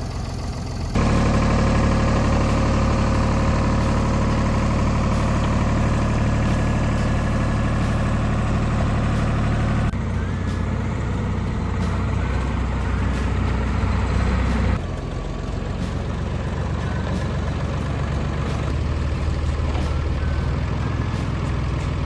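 Tractor engine running steady, in several cut-together stretches, with sudden changes in level and pitch about a second in, about ten seconds in and about fifteen seconds in.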